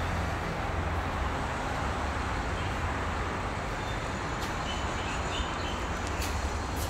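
Steady outdoor background noise with a low rumble, with a few faint clicks in the second half.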